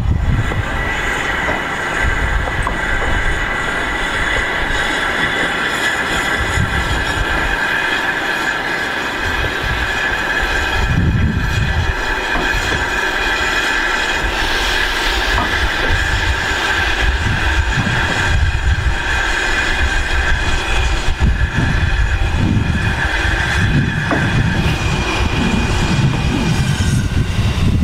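Goods wagons' wheels squealing against the rails as rolling stock moves slowly through the yard, a steady high squeal that fades near the end, with gusts of wind on the microphone.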